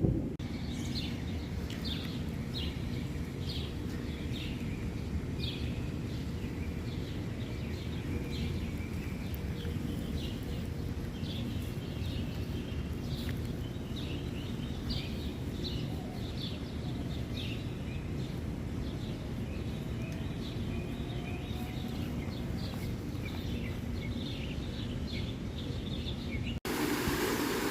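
Small birds chirping in quick, repeated short calls over a steady low background rumble of outdoor noise; the chirping fades out over the last few seconds.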